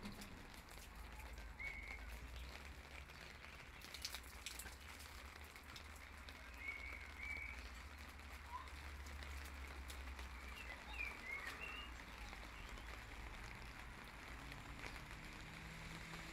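Light rain dripping and pattering onto wet paving slabs, a faint steady hiss over a low rumble, with a few brief clicks about four seconds in and several faint short high chirps.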